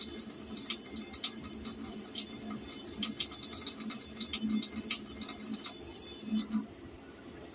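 Tap water running into a sink while wet hands squeeze and rinse raw chicken liver in the stream, with many small wet clicks and splashes. It gets quieter about six and a half seconds in, as the hands move out of the water.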